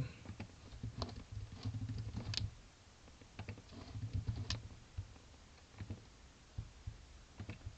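Computer keyboard typing: irregular keystrokes and clicks at uneven spacing, tapering to a few scattered clicks later on.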